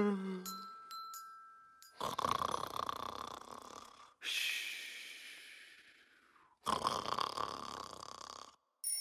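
Snoring in a children's action song: three long snores one after another, each about two seconds and fading out. A few soft chime notes come before them.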